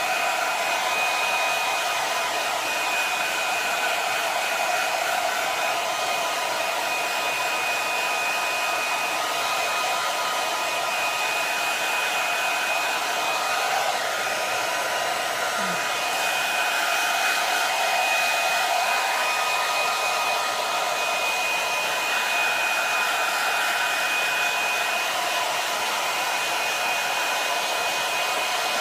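Handheld blow dryer running steadily on its cool setting: an even rush of air with a thin, steady high whine from the fan motor.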